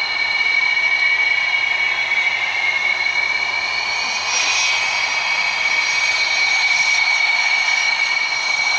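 An F/A-18D Hornet's twin jet engines run at low power as the fighter rolls along the runway, giving a loud, high, steady whine that rises slightly in pitch in the first seconds. There is a brief rush of hiss about four and a half seconds in.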